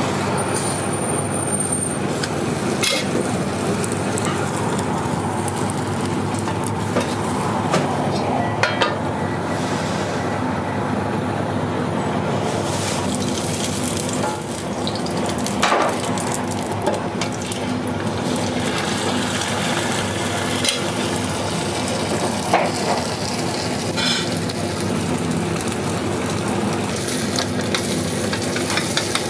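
Dashimaki tamago egg batter sizzling steadily in a pan over high heat, with a steady low hum beneath. Occasional sharp clicks and taps of utensils against the pan come scattered through it.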